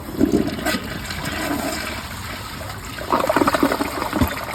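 2011 Glacier Bay toilet flushing: water rushes from the tank into the bowl, growing louder and gurgling about three seconds in as the bowl empties. The flush clears a plush toy and a wristband.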